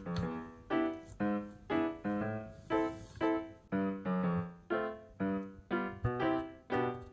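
Background piano music: evenly paced struck notes, about two a second, each ringing and fading.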